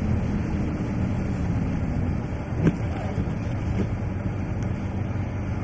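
Car engine and road noise heard from inside the moving car's cabin, a steady low rumble, with a single brief click a little under three seconds in.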